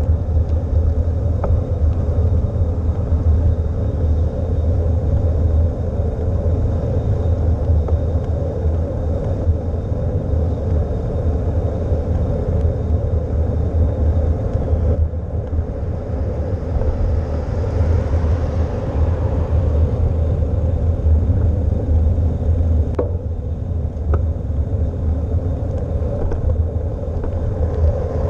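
Wind buffeting a bicycle-mounted GoPro's microphone while riding, a steady low rumble with road noise under it. There is a brief swell of hiss a little past the middle and a few faint clicks.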